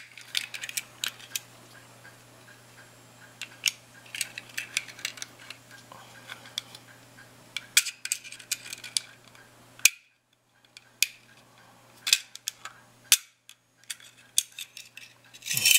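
Light metallic clicks and taps of a pistol magazine being worked by hand: the floor plate being slid onto the magazine body against the spring, which does not go on easily because the spring is in the wrong way.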